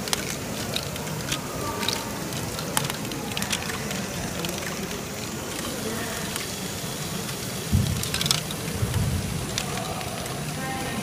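LEGO Great Ball Contraption modules running: small plastic balls and LEGO parts clattering and clicking irregularly over a steady mechanical hum. A couple of low thumps around eight to nine seconds in.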